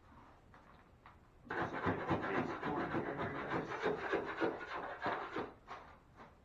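Masking paper and tape being handled and pressed down: dense rustling and rubbing that starts about a second and a half in and lasts about four seconds.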